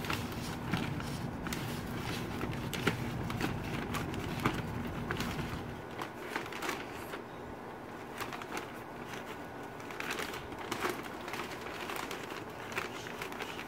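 Large brown-paper yard-waste bag rustling and crinkling as it is handled and fitted over a lawnmower's discharge chute, with many short, irregular crackles of stiff paper. A low background hum drops away about halfway through.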